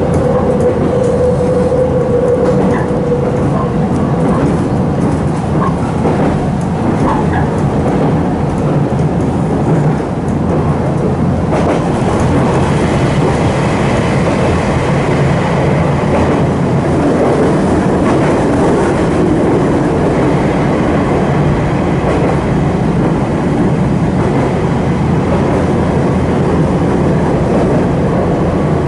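Nankai 2300 series electric train heard from inside the passenger car, running along: a steady rumble of wheels on rail with some clickety-clack, and a brief whine in the first couple of seconds. About eleven seconds in, the noise turns brighter and fuller as the train runs into a tunnel.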